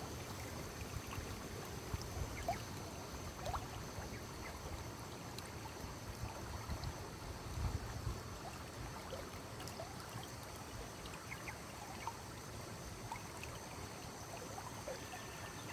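Shallow stream water trickling and gurgling, with many small scattered plops and drips over a steady wash, and a brief low rumble about halfway through.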